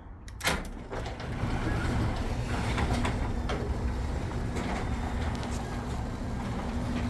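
A click about half a second in, then a Chamberlain/LiftMaster wall-mounted garage door opener running with a steady hum as it moves the door.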